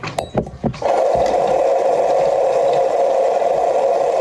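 A few handling knocks, then a small electric motor buzzing loud and steady from about a second in.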